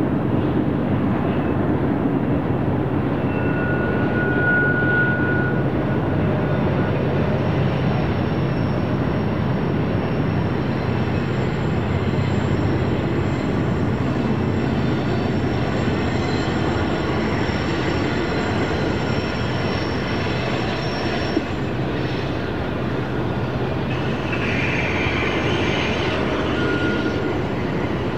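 Freight train rolling steadily on the Mojave Subdivision, with a continuous rumble of wheels and cars. Steel wheels give short high squeals against the curving rail, most clearly about four seconds in and again near the end.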